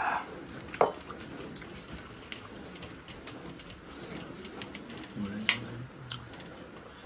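Small wet clicks and smacks of fingers scraping the last fried rice off steel plates and being licked and sucked, with a sharp smack about a second in and a brief hummed 'mm' a little after five seconds.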